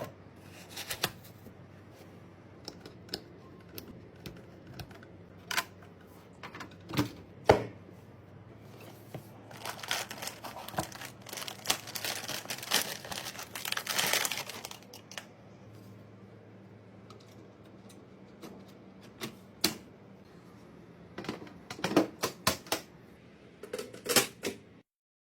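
Computer parts being handled and fitted by hand: scattered sharp clicks and knocks, with a stretch of rustling from about ten seconds in that lasts some five seconds. The audio cuts off abruptly near the end.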